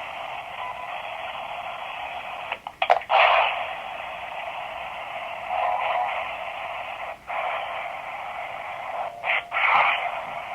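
Ghost-box radio static: a steady, narrow-sounding hiss from a sweeping radio, broken by a few short dropouts and brief louder blips about three seconds in, around six seconds and near the end.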